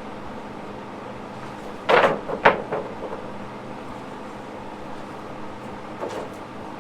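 Sawn pine boards and wooden stickers knocking together as they are laid on a drying stack: two sharp wooden knocks about two seconds in, half a second apart, and a lighter one near the end.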